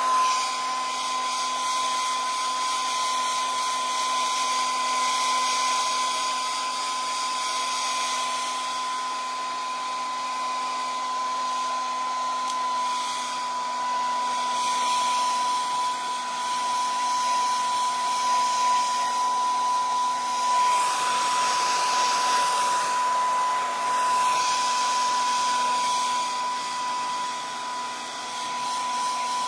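Handheld hair dryer running on wet hair: a steady high motor whine over a rush of air. The rush grows and fades in places as the dryer is moved through the hair.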